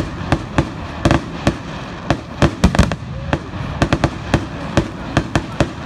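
Aerial fireworks display: shells bursting in a rapid, uneven run of sharp bangs, about three or four a second.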